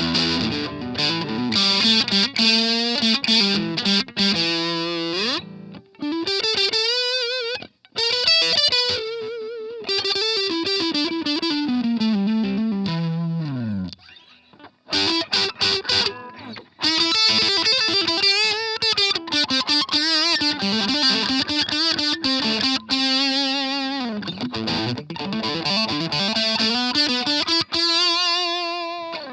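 Ibanez RG550 electric guitar through an MXR Custom Badass '78 Distortion pedal, playing a distorted single-note lead with string bends and vibrato. About halfway through, a long slide down the neck cuts to a brief gap. It ends on a held note with wide vibrato.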